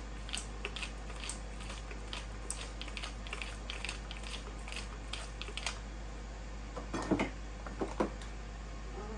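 Pepper mill grinding black pepper: a fast run of small crackling clicks that stops about six seconds in, followed by two louder knocks about a second apart.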